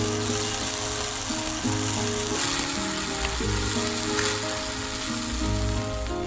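Background music with held notes, over a steady hiss that cuts off right at the end.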